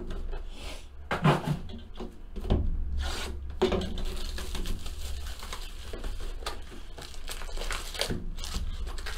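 Foil trading-card packs and their cardboard hobby box rubbing, scraping and rustling as the packs are pulled out by hand and set on a table. There is a low steady hum underneath.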